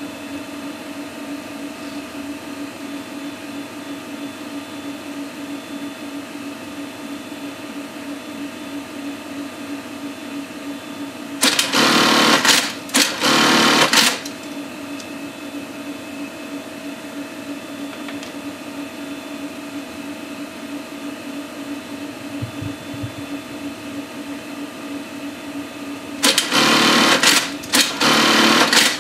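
Juki industrial sewing machine stitching in short runs of about a second, two runs close together about twelve seconds in and two more near the end, over a steady hum.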